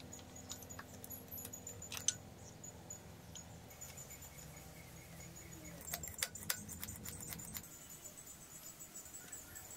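Light metallic clicks and taps from handling motorcycle parts and tools: one sharp click about two seconds in and a cluster of clicks around six seconds. Under them run a faint steady low hum and a fine, evenly repeating high ticking.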